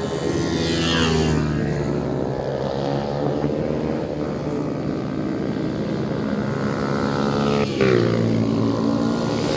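Engines of small mini moto race bikes running hard on the track, several at once, with the pitch falling as bikes pass by about a second in and again near the end.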